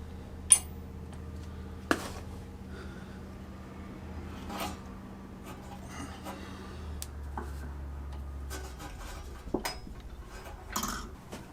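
Metal tools and parts being handled on a drill press pulley: scattered clinks, knocks and scraping. A low steady hum runs underneath.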